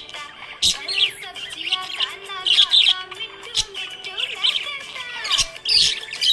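Budgerigars chirping and warbling in quick rising and falling calls, with several loud sharp chirps, over background music with held notes.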